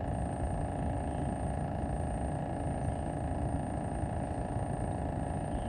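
Steady low rumble of wind buffeting the camera microphone, even throughout with no distinct events.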